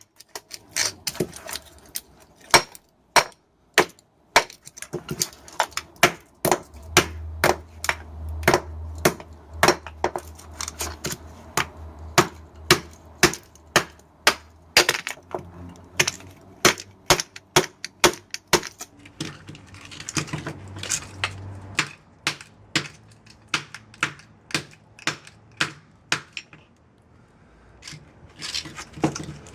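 Rapid hammer blows on a microwave oven transformer, about two a second, as it is broken apart for its copper windings. The blows pause briefly near the end, and a low hum runs under them for a stretch in the middle.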